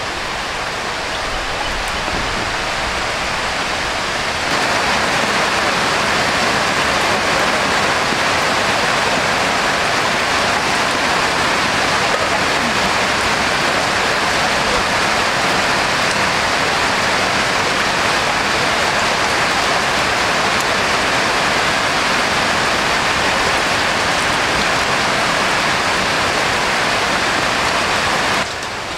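Heavy rain pouring down, a dense steady hiss. It grows louder about four seconds in and drops back just before the end.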